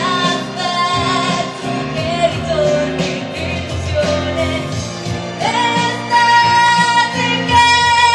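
A woman singing a pop song live into a handheld microphone over amplified backing music, with long held notes. About five and a half seconds in she rises to a high note, holds it, and the sound gets louder.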